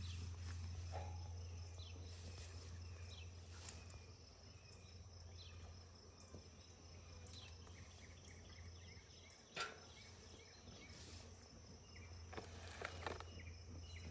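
Faint insect chirping over a low steady hum, with a few light knocks.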